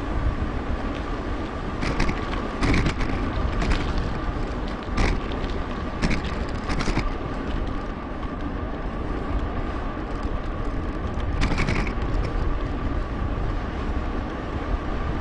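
Riding noise from a bicycle-mounted action camera: a steady wind and rolling rumble with a faint steady hum, broken by several sharp rattles as the bike goes over bumps.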